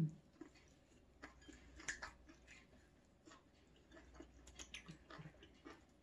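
Faint eating sounds: chewing and small scattered clicks and taps of utensils and dishes. A short vocal sound, falling in pitch, comes right at the start.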